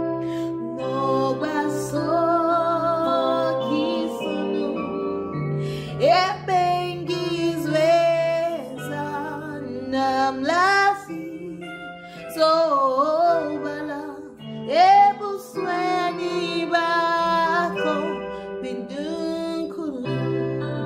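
A woman singing a slow worship song with feeling, her voice swooping up into held notes with vibrato several times, over instrumental backing of steady held chords.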